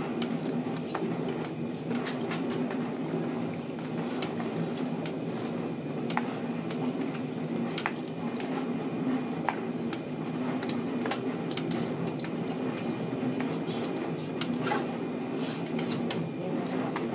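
Hen's eggs being cracked one after another on the rim of a large steel pot: irregular sharp taps, over a steady low hum.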